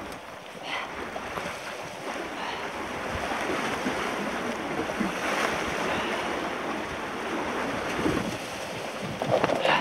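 Surf washing onto the shore with wind on the microphone; the wash swells about halfway through and again near the end.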